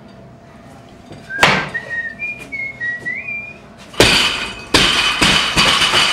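A person whistling a short wavering tune, starting just after a thump about a second and a half in. From about four seconds in there is a louder stretch of rattling, clattering noise with several sharp knocks, lasting about two and a half seconds.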